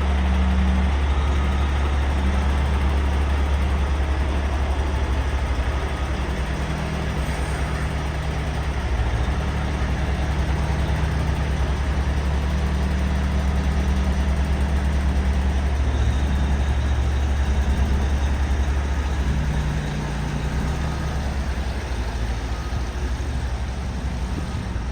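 Heavy truck diesel engine running steadily with a deep low drone, its pitch shifting slightly a couple of times.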